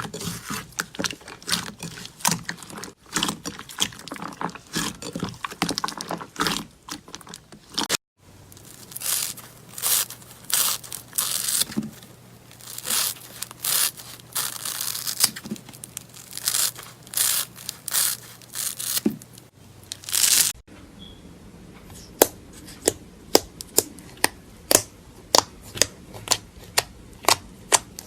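Slime being squeezed, stretched and poked by hand, giving sticky crackling and popping. Near the end comes a run of separate sharp pops, about one or two a second.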